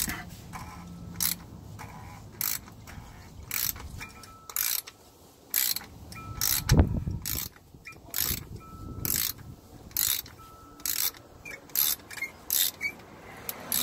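A ratchet on an extension and cup-style oil filter wrench unscrewing a tight oil filter housing cap. Short bursts of ratchet clicking come about once a second as the handle swings back between turns, quickening near the end, with one louder low thud about halfway through.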